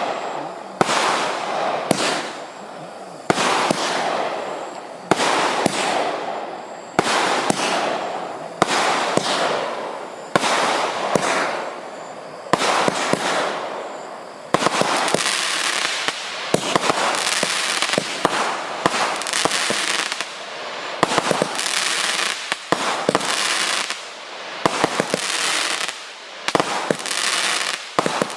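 Cobra's Fang 48-shot firework barrage cake firing in sequence: a sharp bang about every second, each with a fading tail. The shots come faster and denser in the last several seconds.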